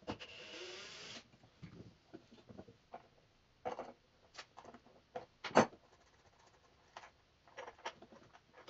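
Faint handling noises from hands working at wiring and parts on a CNC router's Z-axis: a short rustle at the start, then scattered small clicks and knocks, the sharpest a little past halfway.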